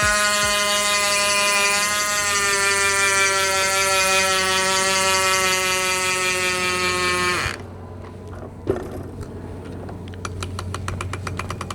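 Electronic intro music: a sustained, buzzy synth chord over a beat, which sags in pitch and stops abruptly about seven and a half seconds in. A quieter stretch follows, with a single click and then a run of fast ticks.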